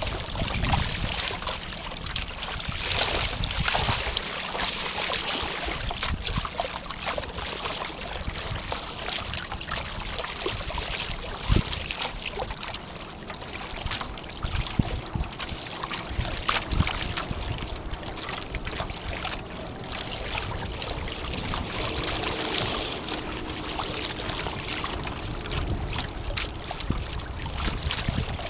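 Water splashing and trickling along the hull of a small 11-foot Snark sailboat under sail, with gusts of wind on the microphone. A single sharper knock comes near the middle.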